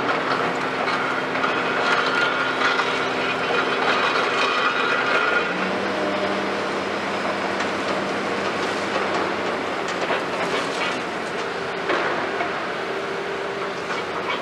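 Hitachi 210 tracked excavator loading broken concrete rubble into a steel tipper trailer: a continuous rattle and clatter of rubble over the hum of the excavator's diesel engine, whose steady note drops to a lower pitch about five seconds in.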